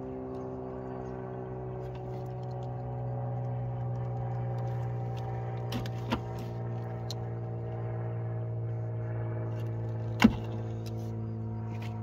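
Steady low mechanical hum of a running engine, with a few sharp clicks from wire strippers working the door-lock wires: two light ones about six seconds in and a louder snap about ten seconds in.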